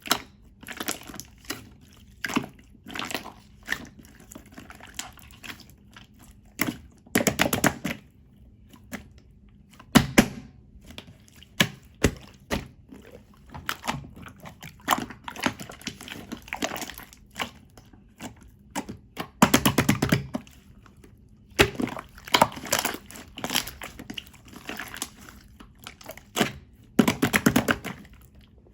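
Clear slime being squished and pressed by hand, giving bursts of rapid wet clicks and pops with short pauses between.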